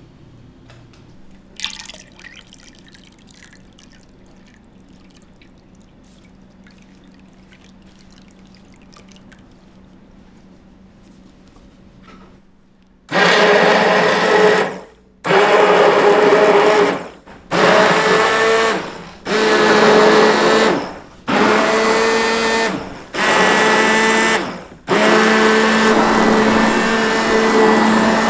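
Electric blender motor run in short pulses: six bursts of one and a half to two seconds with brief gaps, then held on steadily near the end. Before it starts, a low steady hum with faint clatter and one sharp knock.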